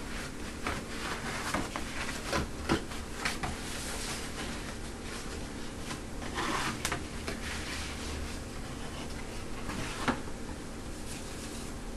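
A book's mail-order cardboard packaging being opened and handled by hand: irregular rustling and scraping with small clicks and knocks. The loudest rustle comes a little past the middle.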